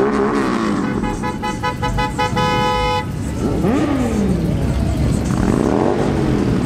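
Car horn honking in slow, crowded traffic: a quick string of short honks about a second in, then one held blast that cuts off about three seconds in, over the steady noise of idling and passing vehicles.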